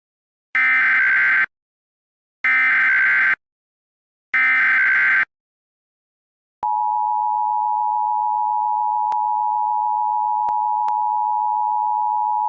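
Emergency Alert System broadcast: three short screeching bursts of the digital SAME header, followed a second later by the steady two-tone EAS attention signal.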